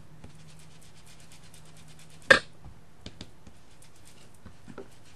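Makeup sponge dabbing ink onto a cardstock heart in faint rapid taps, over a steady low hum. About two seconds in comes one short, loud, throaty sound, much louder than the dabbing.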